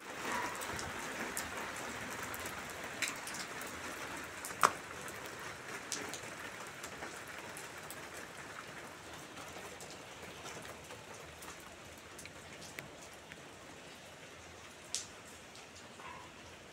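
Steady rain falling, with scattered louder drops striking close by; the sharpest hit comes about a third of the way in. The rain grows gradually softer.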